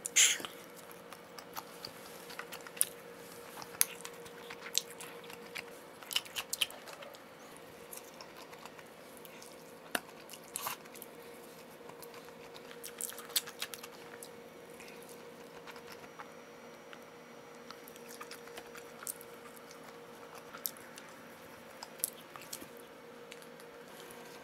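Close-up eating sounds: a person biting and chewing pizza, with irregular sharp clicks and crunches. A faint steady hum runs underneath.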